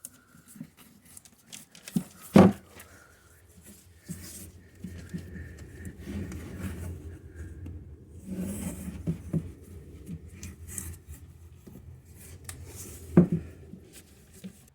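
Handling noises on a workbench: rubbing and scraping with scattered small clicks, and two sharp knocks, about two seconds in and near the end.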